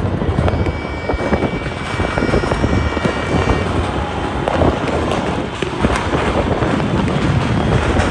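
Many fireworks going off at once in the distance: a continuous rumble of bangs with crackles and pops layered over it, and wind buffeting the microphone.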